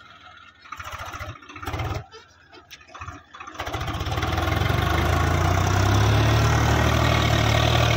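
Swaraj 735 FE tractor's diesel engine throttled up under heavy load as the tractor drags itself out of a muddy rut. After a few seconds of quieter, uneven sound, the engine rises about halfway in and then runs loud and steady.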